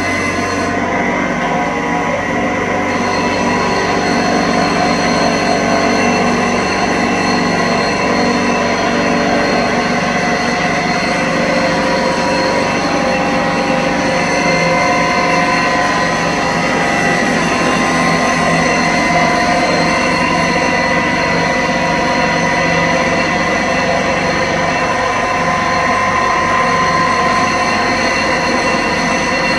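Water-fed diamond grinding table running steadily, a motor hum and whine of several steady tones over a grinding hiss, as a graphite glassworking tool is ground into a bowl shape on it.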